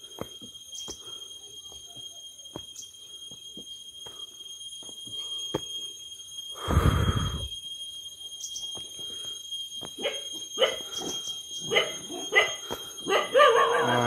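Faint footsteps on concrete steps under a steady high-pitched whine, a louder burst of noise lasting under a second about seven seconds in, then a dog barking several times in quick succession near the end.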